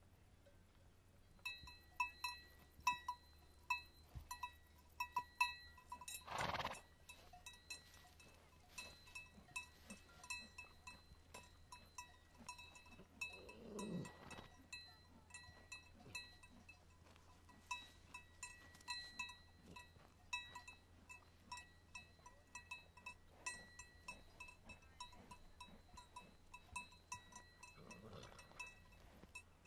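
Bells on grazing livestock clanking irregularly and faintly, many small strikes ringing on the same few pitches. A brief louder rush comes about six seconds in, and a low falling sound comes around the middle and again near the end.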